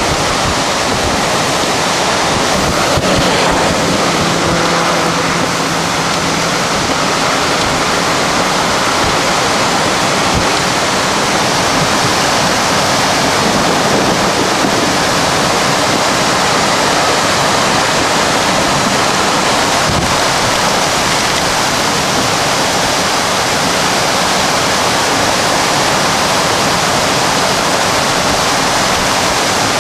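Intense storm winds gusting at 90-110 km/h, a loud, steady roar of wind with wind buffeting the microphone.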